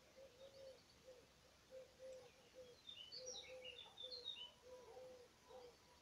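Faint spring birdsong: a songbird's quick, high twittering phrase near the middle, over a steady run of short, low, repeated notes.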